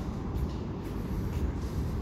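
Deep, steady rumble echoing inside a large sewer culvert pipe, with a few faint knocks.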